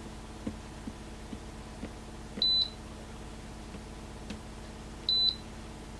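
Farmtek Polaris timer beeping twice, short high-pitched beeps about two and a half seconds apart, as it registers triggers from its light-beam poles. A few faint clicks under a steady low hum.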